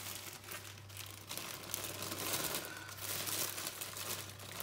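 Crinkling plastic packaging as a pack of sliced red onion is opened and its contents shaken out, the rustling busiest around the middle.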